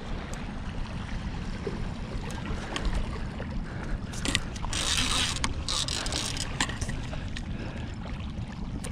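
Low wind rumble on the microphone under rustling and handling noise, with scattered sharp clicks and a brief louder hiss about five seconds in.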